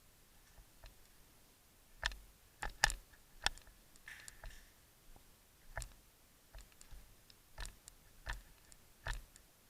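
Scattered single airsoft shots: sharp, short clicks and snaps at irregular intervals, the loudest clustered about two to three and a half seconds in.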